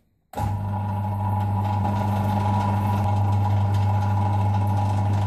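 Milling machine motor running with a steady, loud hum, drilling a hole through a piece of billet; the sound starts abruptly about a third of a second in.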